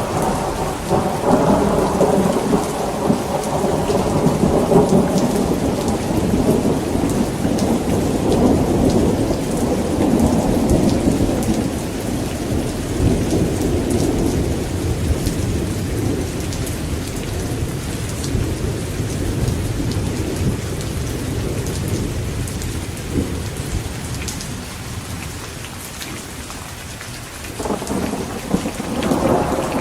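Steady rain with rolling thunder: a long rumble at the start dies away over about twenty seconds, and another roll of thunder begins near the end.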